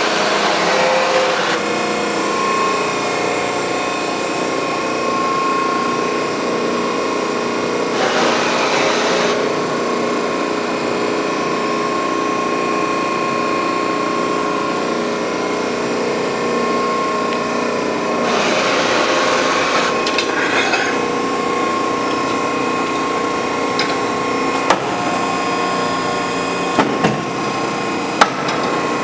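Allsteel 20-ton hydraulic press brake running: a steady hum from its hydraulic pump, with three hissing surges about ten seconds apart and a few sharp clicks near the end.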